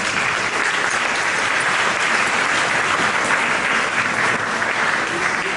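Large seated audience applauding steadily with dense, even clapping.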